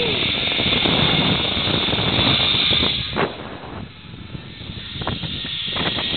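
Steady rushing noise of a zipline ride: the trolley's pulleys running along the steel cable and wind over the microphone. It eases off about three seconds in, with a few brief knocks, and builds again near the end.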